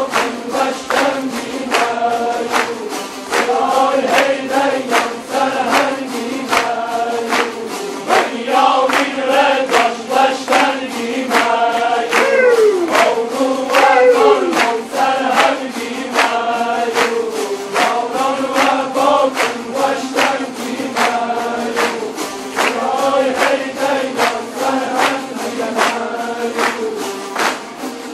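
Large ensemble of Kurdish tanburs, long-necked lutes, strummed together in a steady, even beat, with men's voices chanting the melody in unison. A few falling slides in the melody about halfway through.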